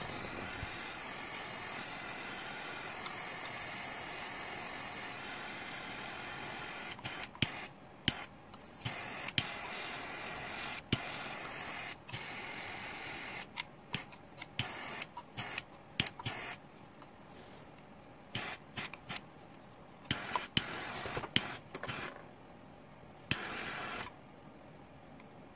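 Small butane hand torch hissing steadily as it heats jeweller's pitch to soften it. After about seven seconds the hiss cuts in and out, with a series of sharp clicks.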